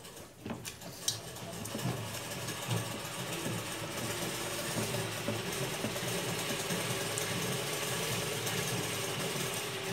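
A machine running steadily with a faint hum, rising in over the first couple of seconds, with a few clicks at the start.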